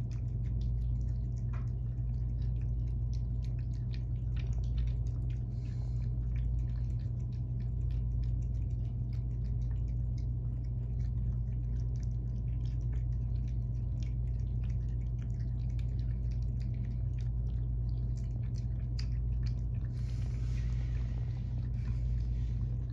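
Cats eating wet food: many small, irregular wet clicks of chewing and licking, over a steady low hum.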